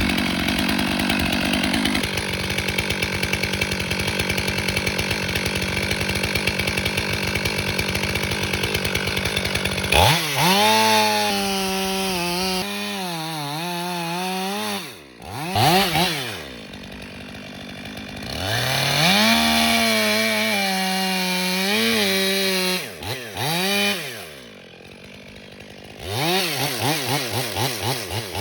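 Chainsaw cutting a face notch into a large red maple trunk. It runs steadily under load for about ten seconds, then is revved up and down several times, dropping to a quieter idle in between, with quick throttle blips near the end.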